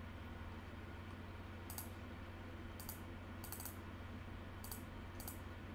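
Light clicks from operating a computer, about six spread over a few seconds, one a quick pair like a double-click, over a faint steady low hum.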